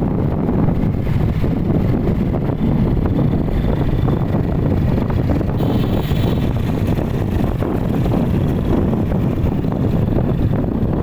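Wind buffeting the microphone on a moving two-wheeler, with its engine and road noise underneath, loud and steady.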